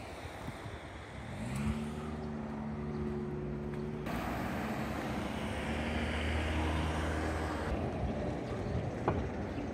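Road traffic: a motor vehicle's engine hum and tyre noise pass by, loudest from about four to eight seconds in, with a single sharp click near the end.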